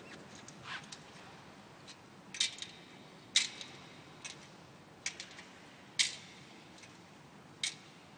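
Metal thurible swung on its chains, the chains and lid clinking against the bowl in sharp metallic clinks with a short ring, about once a second: the incensing of the Gospel book before it is read.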